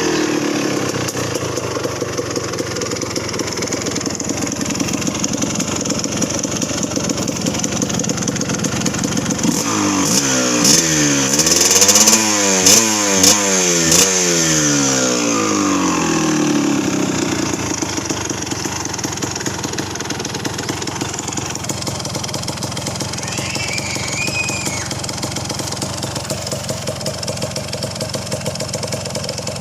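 Kawasaki KMX200's single-cylinder two-stroke engine idling, then given a quick series of throttle blips about ten seconds in, the pitch rising and falling several times before it settles back to idle.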